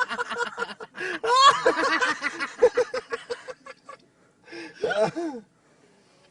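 A man laughing, a run of quick ha-ha pulses that tails off, followed by two short vocal sounds falling in pitch near the end.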